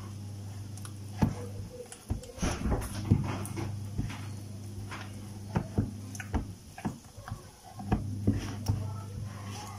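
A spoon knocking and scraping in a bowl as thick banku dough is stirred and broken down, in irregular knocks and short scrapes. A steady low hum lies underneath, dropping out for a few seconds more than once.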